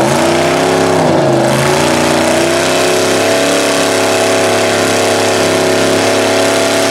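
Pickup truck engine revving hard while its tyres spin in deep mud without gaining traction. The pitch dips about a second in, then climbs and holds steady at high revs.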